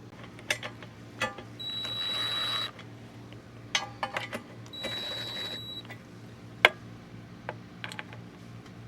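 Metal clinks and knocks of tools and bolts as the ride plate bolts are put in. Two short whirring bursts about a second long come around two and five seconds in, and a sharp clack comes near the end.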